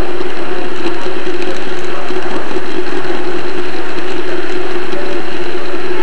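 N-gauge model train running along the track, heard from a tiny camera riding on the train: a loud, steady mechanical rattle and buzz of the small motor and wheels, with a constant hum.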